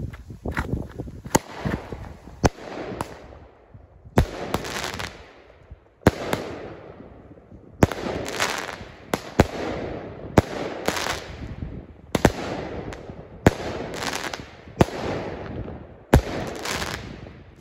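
Sky City consumer firework cake firing its shots in sequence: about a dozen sharp reports, one every second or so, each followed by a fading crackle of the bursting stars.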